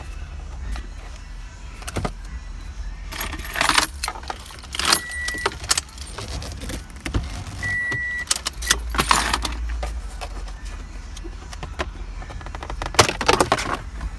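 Plastic steering column shroud of a 2012–2014 Toyota Camry being pried and pulled off by hand: clusters of clicks and rattles, about four of them, as its clips let go. Two short high beeps come in between.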